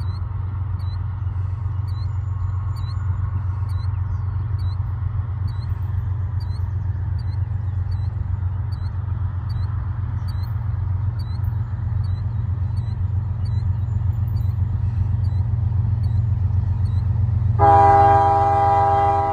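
CSX diesel freight locomotive, an ES44AH leading, sounding its multi-note air horn in one blast of about two seconds near the end, over a steady low rumble that slowly grows louder as the train approaches.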